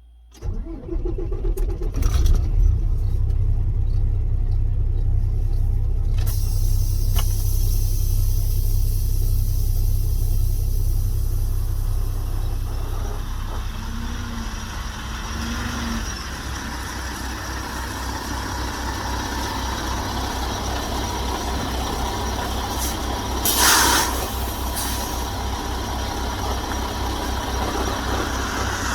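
A truck engine starts about half a second in and then idles steadily. A short burst of hiss comes near the end.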